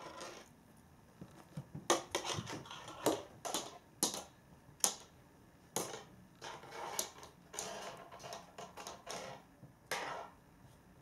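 A cat batting, pouncing on and dragging a silver-grass wand toy across wooden floorboards: irregular sharp clicks and taps of claws, paws and the plastic stick on the boards, with short rustling scrapes in between.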